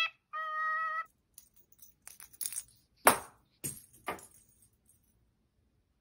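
A cockatiel whistling a sung tune that ends on a steady held note. After a faint high jingle, a cockatiel gives three short, harsh cries a little after three and four seconds in.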